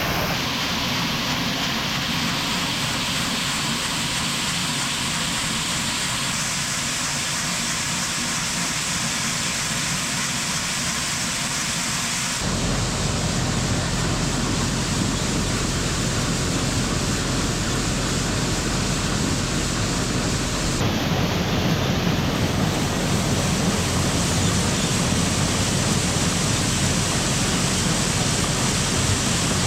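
Heavy farm machinery engine running steadily with a loud rushing noise over it. The sound changes abruptly twice, as if between shots.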